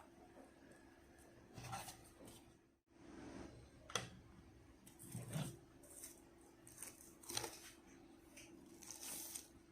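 Faint rustling and clicking of a power bank's packaging being handled by hand, in scattered short bursts with one sharp click about four seconds in.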